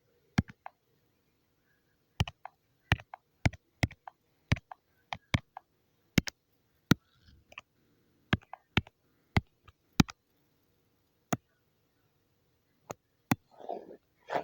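Stylus pen tip clicking against a touchscreen while drawing. The sharp, irregular taps come about one or two a second, often in quick pairs.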